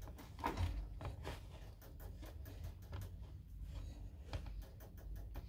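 Faint rustling and scratching with scattered light clicks, from handling a baby Netherland Dwarf rabbit, its urine-soiled feet being checked.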